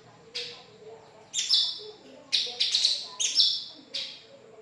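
A cucak cungkok songbird singing in loud, sharp bursts of chirps and short flat whistled notes, about one phrase a second.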